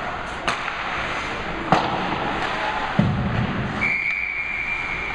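Ice hockey play heard from the stands: sharp cracks of stick on puck, then a heavy thud against the boards about three seconds in, over the hiss of skates and rink noise. A steady high tone sounds for the last second or so.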